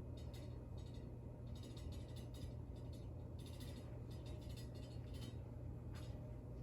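A steady low hum, with faint, scattered high-pitched ticks coming and going over it.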